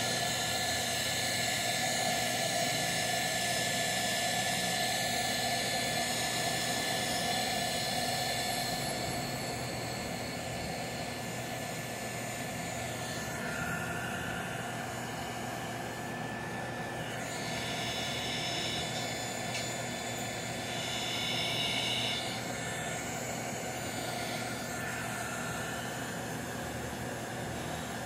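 Electric heat gun running steadily, blowing hot air to shrink heat-shrink tubing over a freshly soldered power-cord wire joint. A steady blowing rush with a thin high tone; the sound shifts a few times around the middle as the gun is moved.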